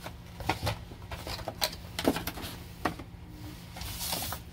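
Plastic blister trays in sterile peel pouches being handled on a steel table: scattered crinkles and light taps, with a brief rustle of the packaging near the end.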